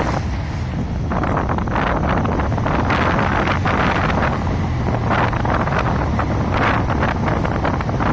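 Ford F-150's engine running under a string of irregular hissing, whooshing bursts from the blow-off valve, each about half a second to a second long: the odd noise the owner is trying to track down.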